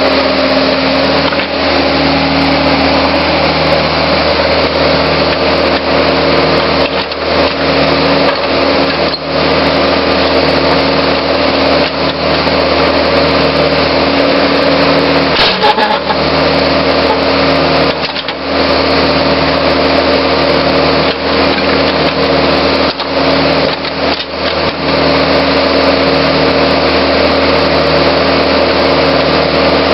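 Backhoe's diesel engine running steadily while it digs, with a few brief knocks from the bucket working in dirt and broken concrete.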